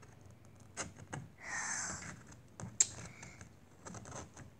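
A few light clicks and taps of a small plastic toy figure being handled and set down on a play mat, with a brief soft rustle about one and a half seconds in.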